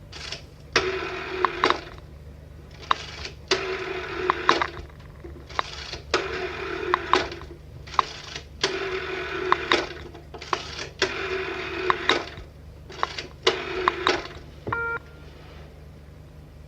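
Telephone bell ringing in about six rings of a second or two each, each ring starting and stopping with a sharp click. A short pitched beep follows near the end, over a steady low hum.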